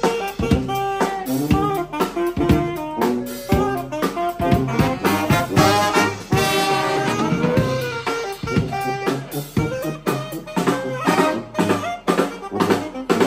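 A live brass band of saxophone, trombone, trumpet and drum kit playing a tune together over a steady drum beat.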